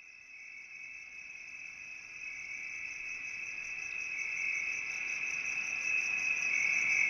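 Insect chorus at dusk: a steady high-pitched trill with a faint regular pulse, fading in and growing louder throughout.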